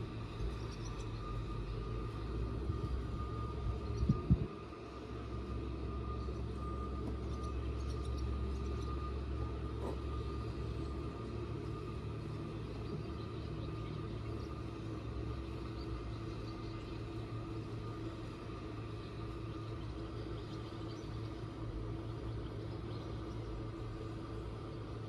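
Small boat's outboard motor running steadily at low speed. A couple of sharp knocks come about four seconds in, after which the low engine hum changes and settles.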